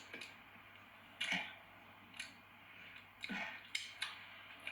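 Eating and food-handling sounds: about five short, crisp clicks and rustles, a couple of seconds apart at most, with quiet between.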